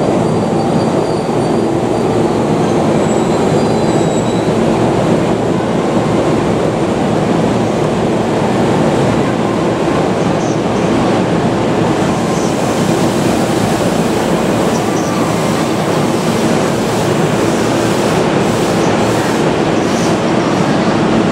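JR Nambu Line E233-series electric train at the platform: a steady, loud rumble of the train, with thin high wheel and brake squeals in the first few seconds as it comes to a stop.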